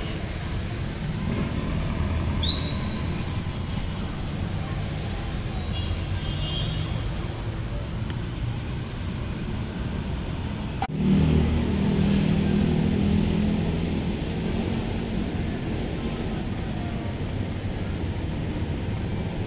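Steady low rumble of road traffic. About two and a half seconds in, a high whistling tone with a brief upward glide at its start is held for about two seconds. About eleven seconds in, a louder low hum sets in suddenly and slowly fades.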